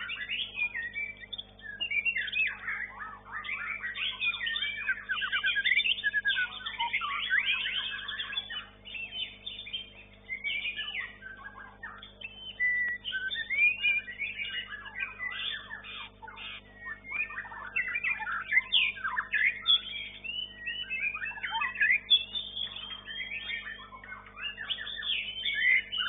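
White-rumped shama (murai batu) singing: a fast, varied run of whistled and chattering phrases, broken by a couple of brief pauses, over a faint steady hum.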